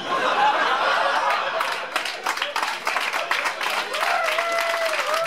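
Comedy-club audience laughing, then breaking into applause, the quick claps thickening from about a second and a half in. A voice rises over the clapping near the end.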